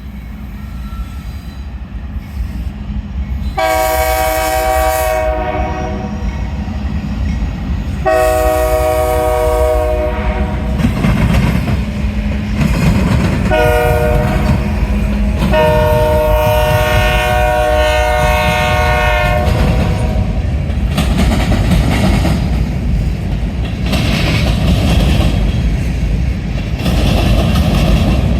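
A GE diesel freight locomotive approaches and sounds its multi-chime air horn in the long, long, short, long pattern of the grade-crossing signal, over the heavy rumble of the engine and train. After the horn the train runs past with wheels clattering over the rail joints.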